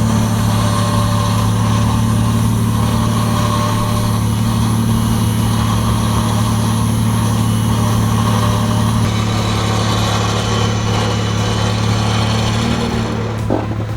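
A 12,000 lb Borne electric winch running steadily under load, spooling its cable onto the drum as it pulls a Jeep Wrangler in neutral. The hum stops about a second before the end.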